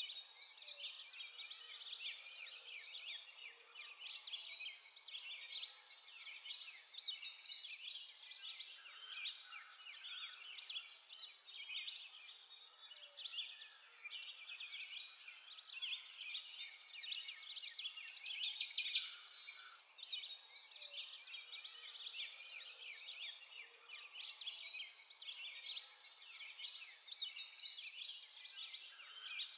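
Many birds chirping and singing at once, a continuous chorus of short high calls and trills that swells and fades every few seconds.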